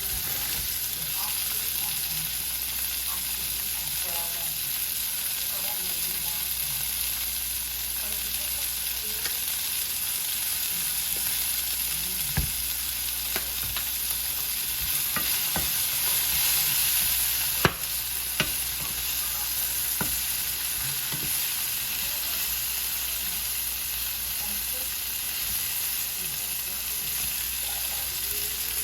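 Shrimp and vegetables sizzling in a frying pan as they are stirred, with a steady hiss and a few sharp clicks in the middle, the loudest about two-thirds of the way through.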